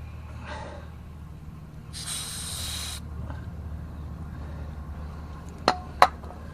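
A short hiss of spray, about a second long, over a steady low hum, then two sharp clicks a fraction of a second apart near the end.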